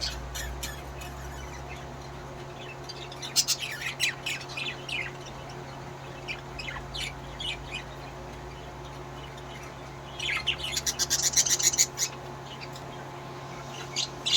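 Pet parrots chirping and squawking: scattered short chirps a few seconds in, a fast run of chattering chirps around ten to twelve seconds, and one sharp call near the end, over a steady low hum.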